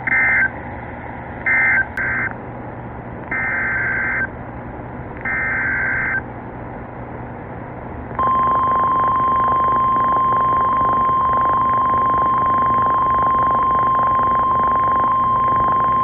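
Emergency Alert System SAME data bursts, five short screeching digital chirps with the last two about a second long: the end-of-message code of one warning and the header of the next. About 8 seconds in they give way to the steady 1050 Hz NOAA Weather Radio warning alarm tone.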